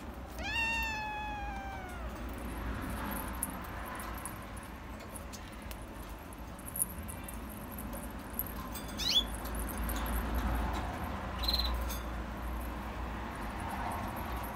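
A kitten gives one long meow that falls slightly in pitch, about half a second in. About nine seconds in come a couple of short, high-pitched squeaks.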